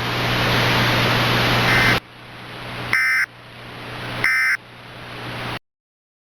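Three short bursts of EAS end-of-message data tones, a rapid two-tone digital squawk, about a second and a half apart. They sit over loud static hiss that swells up between the bursts and cuts off abruptly just before the end.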